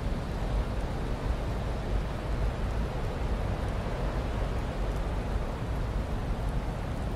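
Blizzard wind blowing steadily: a continuous rushing noise with a deep low rumble and no gusts or breaks.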